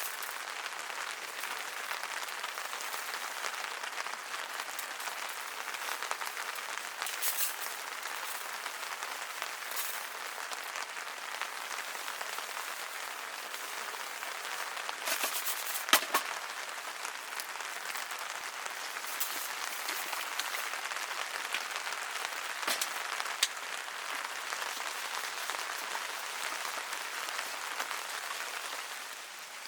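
Steady rain falling, with a few sharp taps scattered through it, the loudest about halfway through.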